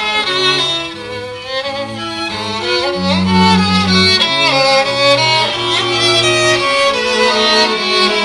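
A violin and cello duo playing live, the violin carrying the melody over held cello bass notes.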